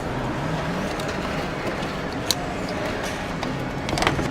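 Car assembly plant machinery running with a steady din, broken by a few sharp metallic clicks.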